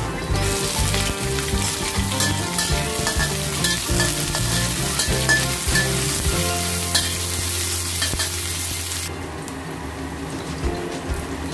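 Ginger slices and spring onions sizzling in hot oil in a wok, stirred with a metal spatula that scrapes and taps the pan. The sizzle drops away suddenly about nine seconds in.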